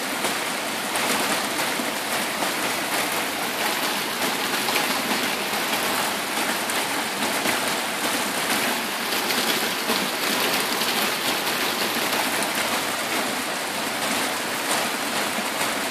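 Heavy rain falling steadily on a metal roof, a dense patter of drops, with a stream of water pouring off the roof.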